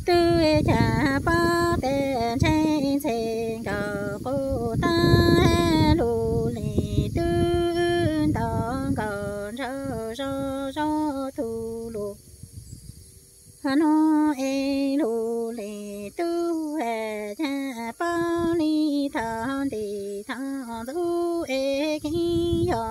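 A woman's voice singing kwv txhiaj, Hmong sung poetry, unaccompanied, in long held, wavering notes, with a short pause for breath about halfway.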